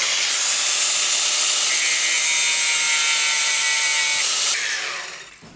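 Angle grinder with a 1 mm slitting disc grinding down a peened rivet head on a metal armour plate to level it with the surface. Steady, shrill grinding that stops about four and a half seconds in, then fades as the disc spins down.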